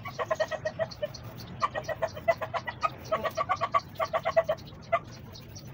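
An animal calling in rapid runs of short, repeated pitched notes, about eight to ten a second, in three bursts of a second or so each, with one last note near the end.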